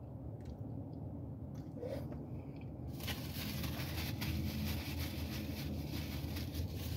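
Quiet chewing with faint mouth clicks, then from about three seconds in a paper napkin crinkling and rubbing as it wipes the mouth, over a low steady hum.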